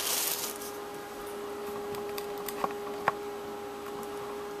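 Foam packaging sleeve rustling briefly as the laptop is set down, then a faint steady hum with two small clicks about two and a half and three seconds in.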